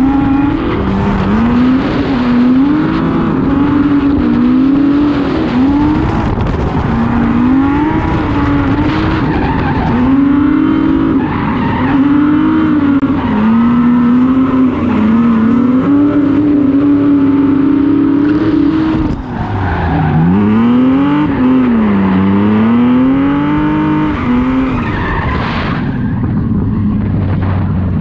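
Drift car engine held high in the revs, its pitch swinging up and down as the throttle is worked, over steady tyre squeal and skidding. About two-thirds of the way through, the engine pitch drops and sweeps up and down a few times before settling high again.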